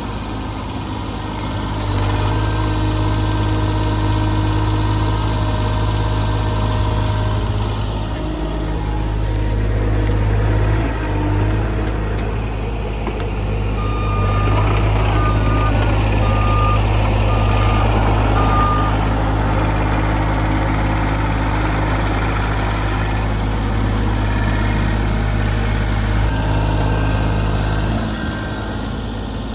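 Compact excavator's diesel engine running steadily under work, with its travel alarm beeping about five times, evenly spaced, near the middle.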